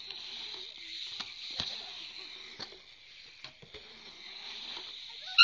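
BMX bike riding in a concrete skatepark bowl: a steady hiss with scattered sharp knocks and clicks, and a brief high squeak right at the end.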